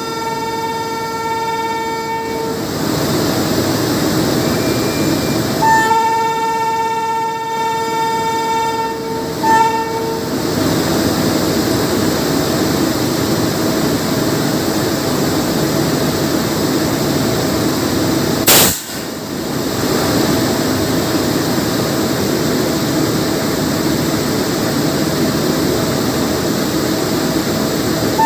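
WAP7 electric locomotive's horn: a long blast that ends about two seconds in, a second long blast from about six to nine and a half seconds, then a brief toot. After that, the steady running noise of the train, with a single sharp crack about two-thirds of the way through.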